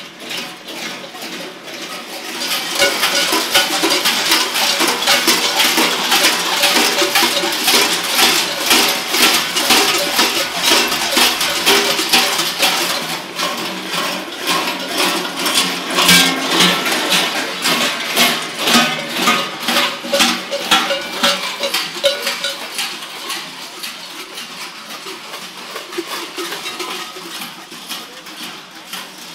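Large bells worn by a group of running Klaubauf, clanging together in a dense, rapid jangle. It swells about two seconds in and fades over the last third.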